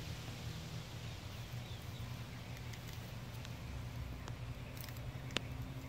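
Outdoor background with a steady low hum and a few faint scattered clicks and rustles, one sharper click about five and a half seconds in.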